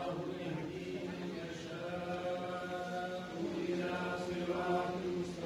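A voice chanting in long, held notes, one sustained melodic line without a beat.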